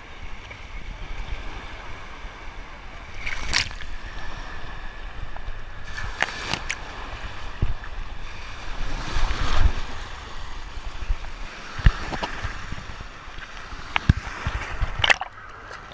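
Water and wind noise on an action camera's microphone, with a low rumble and scattered sharp knocks.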